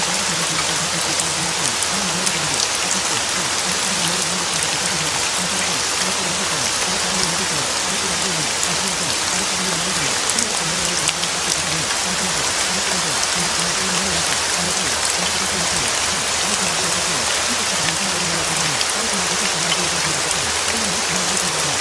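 Steady rain: an even, unbroken hiss of rainfall.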